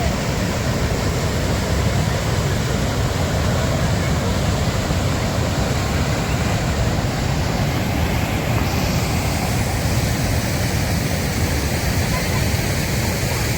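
Steady rushing roar of the waterfall and its flowing river, with no breaks.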